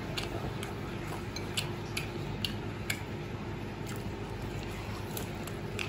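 Chewing of a crispy fried chicken leg: scattered faint crunches and clicks at irregular moments over a steady low hum.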